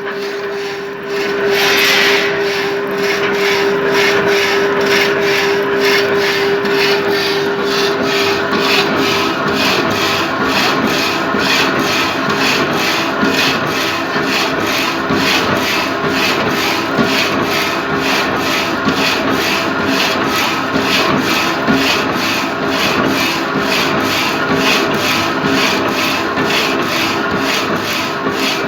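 Hydraulic reciprocating saw cutting, its blade strokes repeating in a steady, fast rhythm that starts about two seconds in. A steady hum runs under it for the first several seconds.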